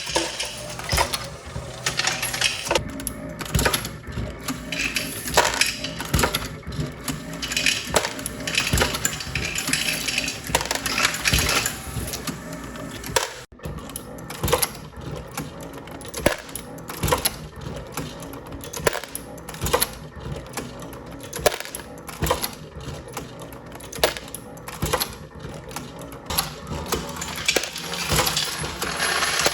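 Dillon RL1100 progressive reloading press, driven by a Mark7 AutoDrive, cycling and loading 9mm rounds. It makes a continuous rhythmic mechanical clatter with metallic clinks of brass cases, with a brief break about halfway.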